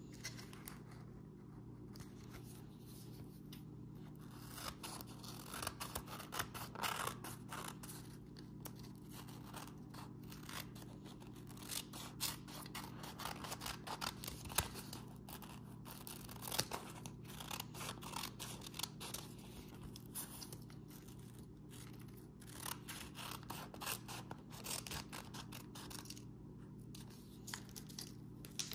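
Small scissors snipping through a paper-backed clear adhesive sheet in a long run of short cuts, with the sheet crinkling and rustling as it is handled and its backing peeled.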